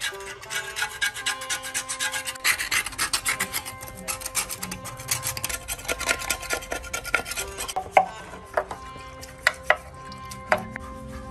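Hand scraper run over a dirty metal engine block and cover in quick repeated strokes, scraping off caked grime. The strokes thin out to a few separate sharp knocks near the end.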